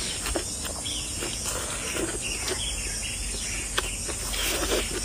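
Close-up mouth sounds of a person eating: chewing and slurping long-stemmed leafy greens and poached chicken, with soft wet clicks every second or so. A steady high hiss runs underneath.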